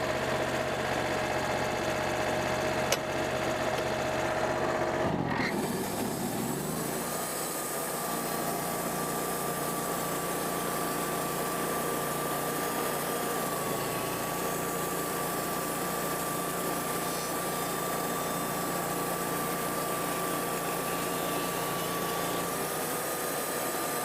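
Wood-Mizer band sawmill running steadily. About five seconds in, the sound changes abruptly and settles into a higher, steady whine, which drops in pitch near the end.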